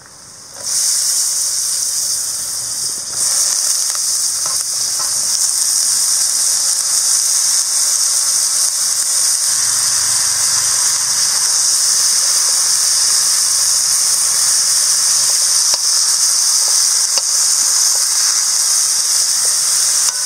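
Potato cubes sizzling in hot oil and masala in a kadai: a loud, steady hiss that starts abruptly about a second in as the potatoes hit the pan.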